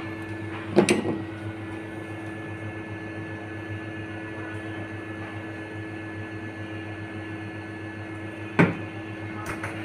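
Steady machine hum with a level tone, broken by two short knocks, one about a second in and a louder one near the end.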